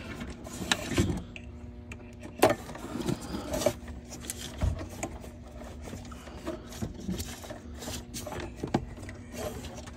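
Scattered clicks and light scrapes from multimeter test probes and wiring being handled at a golf cart's forward/reverse switch terminals, with a faint steady hum starting about four seconds in.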